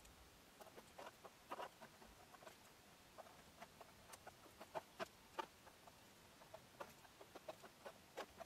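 Faint, irregular little clicks and crackles of an electric hot-knife tip melting through velvet fabric as it is drawn along the edge of a stencil template.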